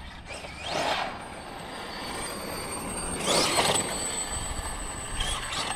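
Losi 5ive TE 3.0 electric RC truck's brushless motor whining up in pitch as it accelerates, twice: once near the start and again about three seconds in, with a steady rushing noise between.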